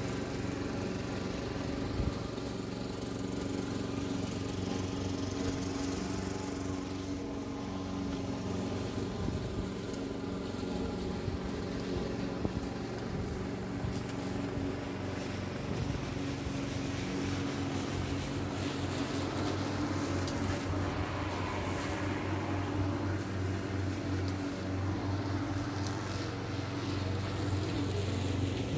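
Petrol lawn mower's Briggs & Stratton four-stroke engine running steadily under mowing load, a continuous engine hum.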